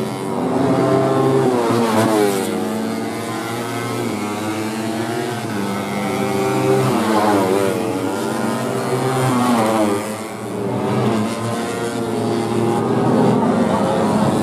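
Several tuned four-stroke 150cc underbone race motorcycles at full throttle, their engine notes overlapping and repeatedly climbing and dropping in pitch as the bikes accelerate, shift and pass.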